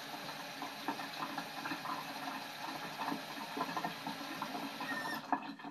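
Kitchen tap running water into a measuring cup, a steady splashing hiss that cuts off about five seconds in as the tap is turned off.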